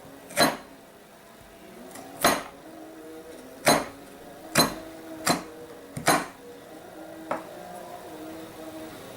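About seven sharp knocks at uneven spacing, the last one weaker, over faint steady background tones.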